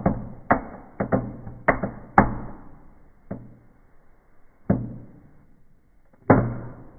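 Small indoor tabletop firework popping and crackling: a quick series of sharp pops that thins out to single pops a second or more apart.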